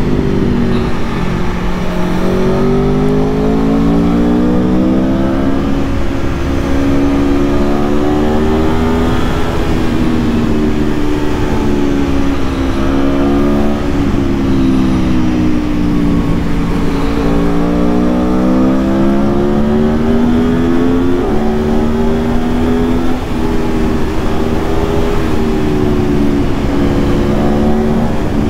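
Aprilia Tuono V4 1100's V4 engine pulling the bike along the road, its pitch climbing slowly and then dropping back several times as the revs rise and fall.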